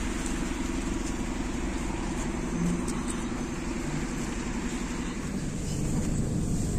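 Steady low rumble of a city bus engine running at the stop, with street traffic behind it.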